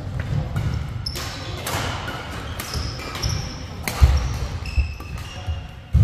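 Athletic shoes squeaking briefly and repeatedly on an indoor badminton court floor, with footsteps and a few sharp knocks, the loudest about four seconds in.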